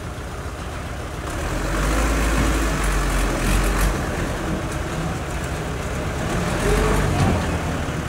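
Heavy diesel engine of earthmoving machinery running at a worksite, growing louder about a second and a half in and again near the end.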